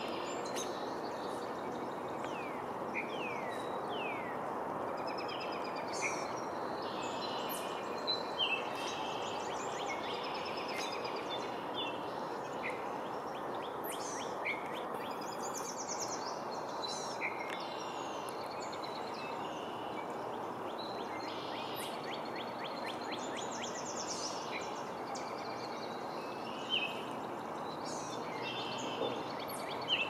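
Several songbirds chirping and singing, many short calls, sweeps and trills overlapping, with a rapid trill near the end, over a steady background rush of noise.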